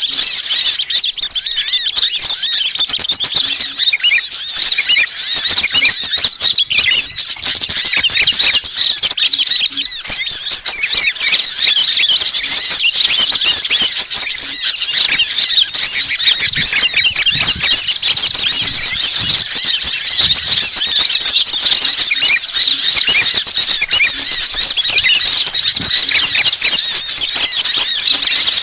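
A bird-lure track: a dense, continuous chorus of rapid, high chirps and twitters from small songbirds, many calls overlapping without pause.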